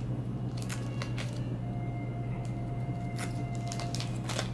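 A few short crinkles and clicks from a foil trading-card pack wrapper being handled while the cards are eased out, over a steady low hum.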